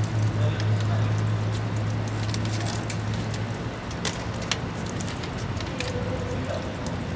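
Scattered small clicks and crinkles of candy packets and soda cans being handled and drunk from, over a steady low hum that fades out about three and a half seconds in.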